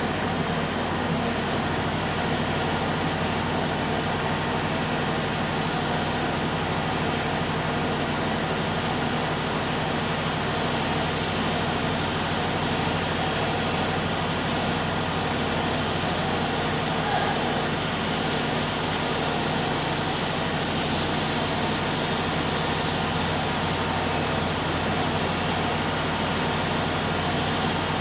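Diesel engine of heavy construction machinery running at a steady, constant speed: an even drone with several fixed low tones and no revving.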